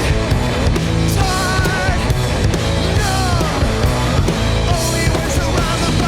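Punk rock song with drums and a wavering lead melody, an instrumental stretch with no vocals.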